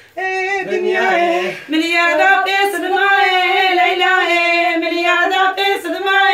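Women singing a line-dance song unaccompanied, in long wavering held notes; a lower voice joins briefly about a second in.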